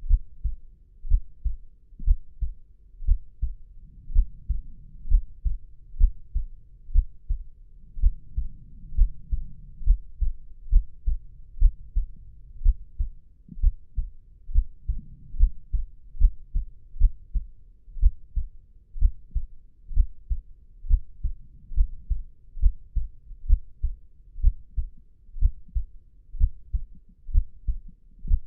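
Heartbeat sound effect: a steady lub-dub pulse of low double thumps, about one beat a second.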